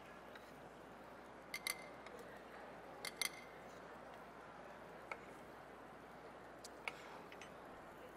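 Faint steady room hiss broken by a few light clinks of glass bowls and kitchen utensils: two quick pairs about one and a half and three seconds in, then single clinks later.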